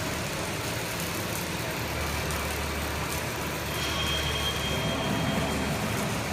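Hydraulic CNC press brake running, with steady machine noise. A deeper hum comes in about two seconds in and fades near the end, and a thin high whine is heard for about a second and a half in the middle.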